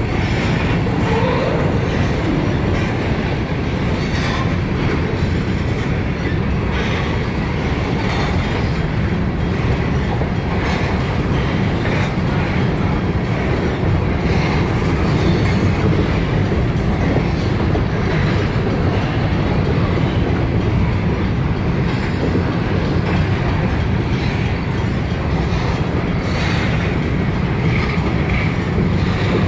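Freight train of covered hopper cars rolling past at close range: a steady, loud rumble of steel wheels on rail, with scattered clicks.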